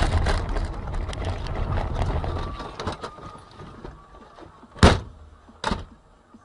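A vehicle's rumble and rattle fading away over the first few seconds, then two sharp thumps under a second apart.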